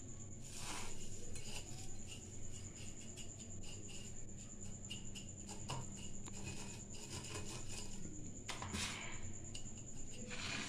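Dry fried vermicelli being dropped and pressed by hand into a glass bowl: faint rustling with many small crackles and a few brief swishes. A steady low hum runs underneath.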